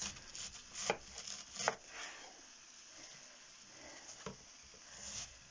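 Long kitchen knife cutting a head of white cabbage on a wooden cutting board: quiet cutting and handling noise with a few sharp knocks as the blade or cabbage meets the board.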